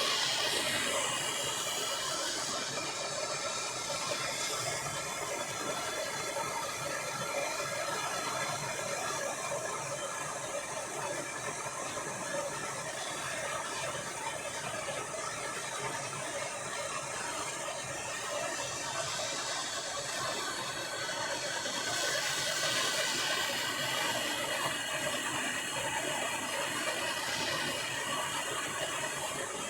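Handheld gas blowtorch burning with a steady hiss, heating a seized, corroded fork damper bolt to free it.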